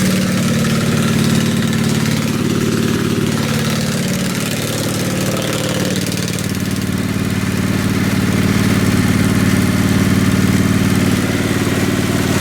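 Riding lawn mower's small engine running steadily.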